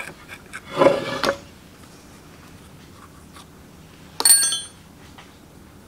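Metal parts of a chain grinder handled on a steel workbench: a knock about a second in as the grinding wheel and its shaft are moved, then a sharp metallic clink with a brief ring a little past four seconds.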